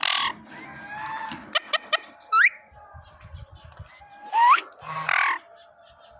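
Parrot calling: harsh squawks at the start and twice near the end, short whistles that slide sharply upward, and a few sharp clicks about two seconds in.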